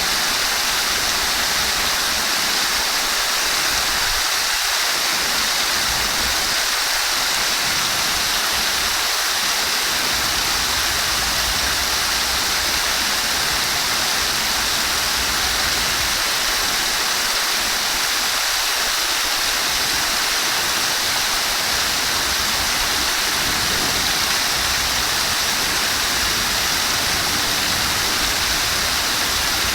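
Running water flowing steadily, an even, unbroken rushing hiss.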